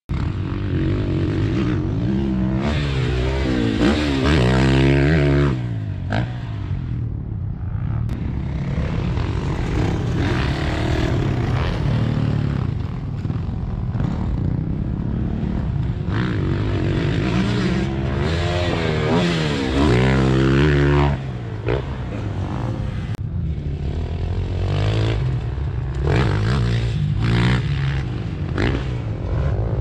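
Motocross dirt bikes riding the track, engines revving hard and dropping off over and over as they accelerate, shift and jump. The pitch climbs sharply and falls, loudest around four to five seconds in and again around twenty seconds in.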